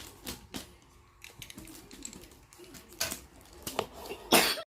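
Hands handling a parcel's packaging: scattered light clicks, taps and rustles, then a short, louder rustle near the end before the sound cuts off abruptly.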